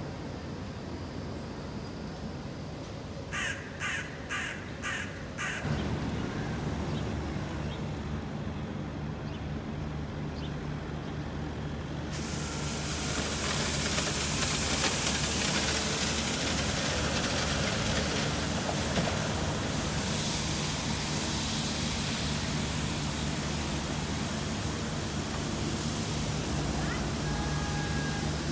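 A crow caws about five times in quick succession a few seconds in, over a low background of street noise. A steady low engine drone follows, and from about twelve seconds in a broad, louder rushing noise of a passing vehicle takes over.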